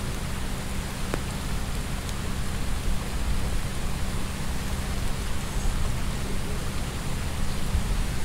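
Steady rain falling and pattering on wet surfaces, with a low rumble underneath.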